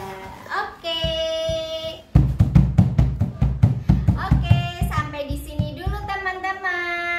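Music with singing: long held sung notes, then a steady beat comes in about two seconds in under the melody.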